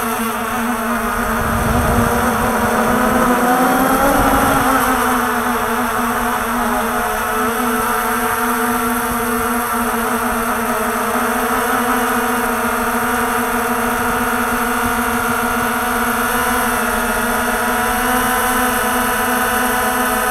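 Walkera TALI H500 hexacopter's electric motors and propellers whining, as picked up by its onboard camera. The pitch dips and rises over the first few seconds, with a low rumble, then holds steady.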